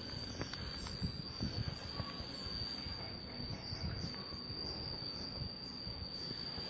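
Steady, unbroken high-pitched trill of an insect, with an uneven low rumble on the microphone beneath it.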